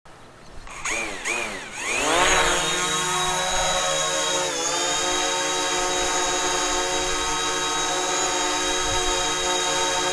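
DJI Mavic Pro quadcopter's motors and propellers spinning up with a wavering, rising whine, then settling about two seconds in into a steady hovering whine of many tones, with a brief dip in pitch about halfway through.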